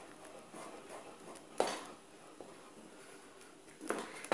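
A spoon stirring and scraping a thick brigadeirão (chocolate and condensed-milk) mixture in a stainless-steel pot. The mixture has cooked to its set point and pulls away from the bottom of the pan. The stirring is faint and irregular, with a sharp knock of the spoon about a second and a half in and a few more near the end.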